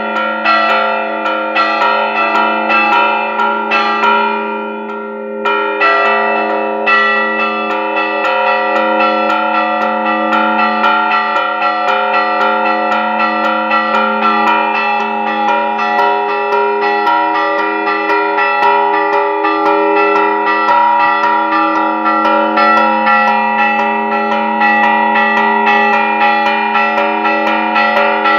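Church bells rung by hand in a festive repique, the peal for the novenario of the patronal feast. Several bells are struck in rapid succession with their tones overlapping. The strikes pause briefly about five seconds in, then the ringing resumes.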